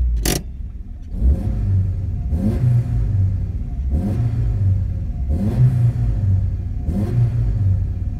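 1992 Alfa Romeo 33 1.3's flat-four boxer engine, heard from inside the cabin, being revved in repeated throttle blips about every second and a half and dropping back between them. It is running on freshly fitted spark plugs. A sharp click comes just before the revving starts.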